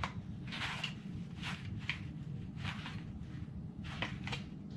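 Plastic paint-pad base and foam pads being handled and turned over: soft scrapes, rustles and light taps every half second or so, over a steady low hum.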